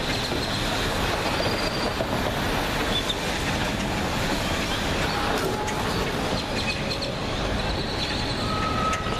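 Steady rushing outdoor background noise, with a few faint thin high tones in the second half.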